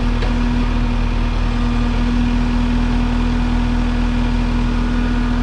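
1994 JCB 214 backhoe loader's diesel engine running steadily under throttle, with one strong even tone holding over the engine note.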